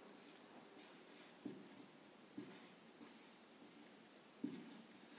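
Faint marker writing on a whiteboard: soft scratchy strokes, with three sharper taps as the tip meets the board.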